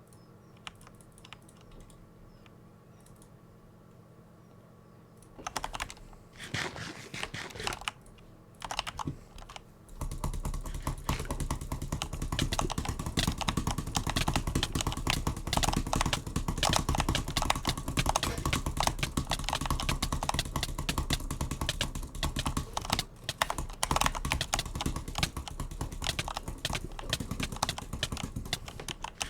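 A butterfly clicker being flipped, its handles clicking. It is quiet for the first few seconds, gives a few scattered clicks, then from about ten seconds in clicks rapidly and continuously.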